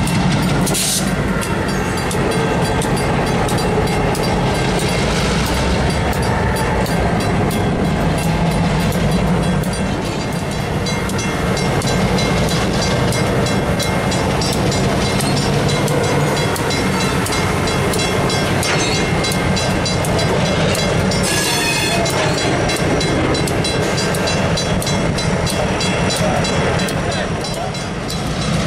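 Two EMD diesel locomotives, an SW1500 switcher and a GP38-2, running at low speed past the listener, engines droning steadily while the train of freight cars rolls by. A fine, regular ticking runs over the engine sound, and there is a short burst of hiss about 21 seconds in.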